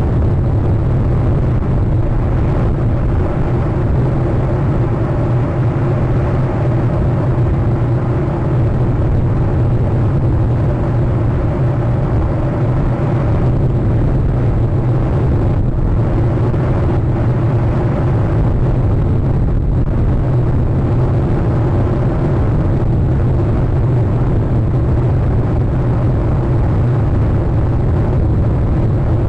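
Steady loud low rumble with a constant hum under it.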